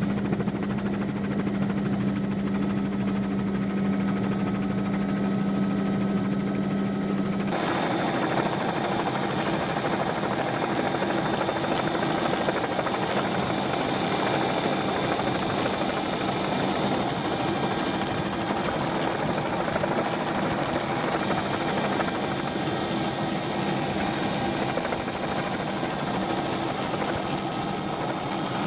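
Steady engine-and-rotor hum of a rotorcraft in flight. It changes abruptly about seven seconds in, from a strong low tone to a noisier, higher mix, then holds steady.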